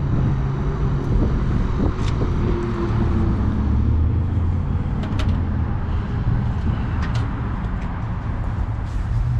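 Car engine running steadily with a low hum, and a few short clicks over it.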